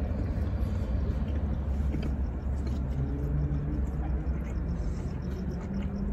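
Steady low rumble of a car's engine idling, heard from inside the cabin, with soft chewing of pizza over it.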